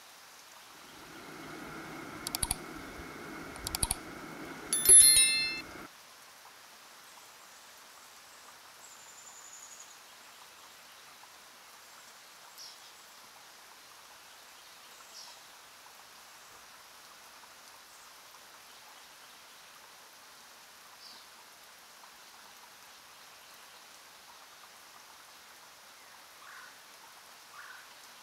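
Sound effects for a subscribe-button animation: a low hum rises, two sharp clicks follow, then a bright bell-like ding about five seconds in. After that only faint hiss remains.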